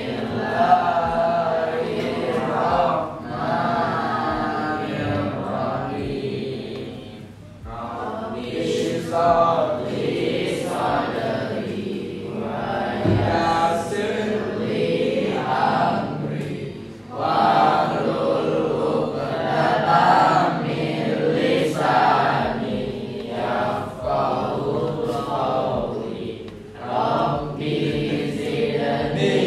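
A class of students chanting together in unison, in phrases of a few seconds with short breaks between them.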